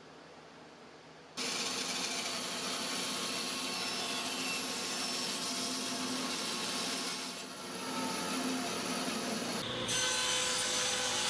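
A saw cutting plywood, cutting clearance in the drill press table for the height adjustment crank. It starts abruptly about a second in, dips briefly midway and changes to a brighter cut near the end.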